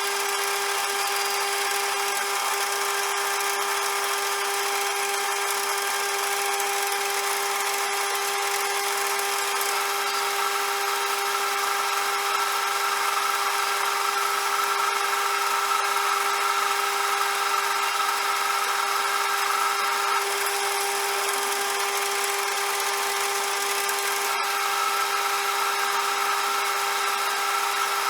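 CJM360 lathe running steadily with a constant whine. A higher, hissing tone swells from about a third of the way in to about two-thirds, and again near the end.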